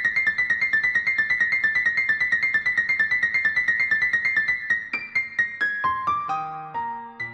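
Piano music: a fast, even figure of repeated high notes, about eight a second, that breaks about five seconds in into a falling run and slower, lower notes.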